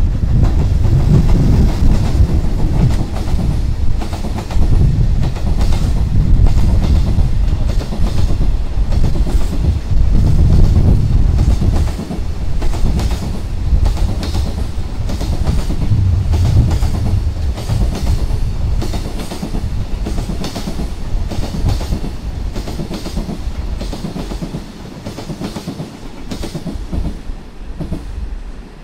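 Container freight train, hauled by an EH500 electric locomotive with a long rake of container flat wagons, passing through a station without stopping: a steady low rumble with rapid clickety-clack of wheels over rail joints, dying away over the last few seconds as the train goes by.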